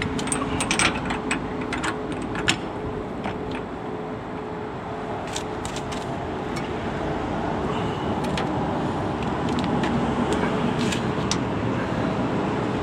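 Metal clicks and clinks of a socket wrench tightening loose nuts under a caravan, over a steady background of vehicle noise.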